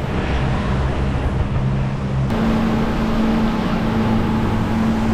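Tour boat's engine running steadily under way, a low hum over rushing wind and water noise; the hum jumps to a slightly higher pitch a little over two seconds in.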